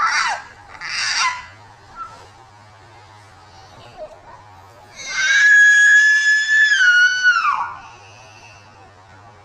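Two short cries, then about halfway through one long high-pitched scream held for about two and a half seconds, falling in pitch as it ends.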